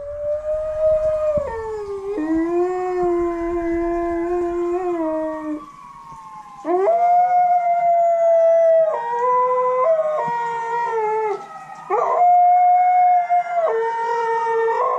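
Dog howling in long, held notes that step up and down in pitch, with short breaks between howls. A fainter tone rises and falls behind the howls.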